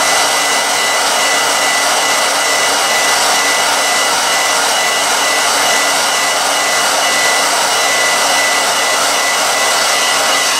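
Handheld hair dryer running on high: a steady rush of blown air with a thin steady whine.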